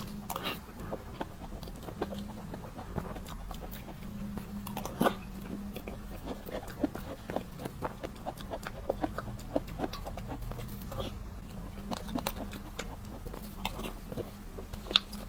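Close-miked eating sounds: wet chewing and irregular mouth clicks and smacks as soft cream cake is eaten.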